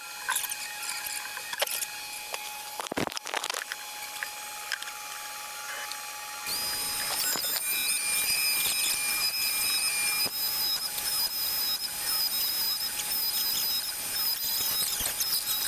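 Power tool running with a high, steady whine that starts about six and a half seconds in, after a stretch of scattered clicks and squeaks.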